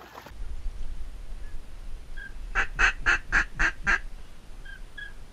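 A run of six quick duck quacks, about four a second, about halfway through, with a few faint short whistles before and after.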